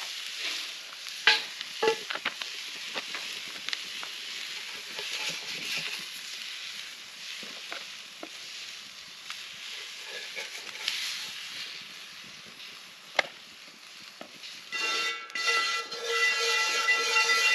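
Food sizzling in a skillet over a campfire, with a utensil scraping and clicking against the pan as the food is spooned out. Near the end a louder, steady whistle of several tones sets in.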